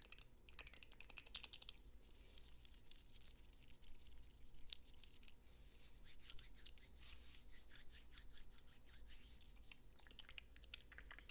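Soft, rapid clicking and scratching close to the microphone, irregular crackles with no steady beat.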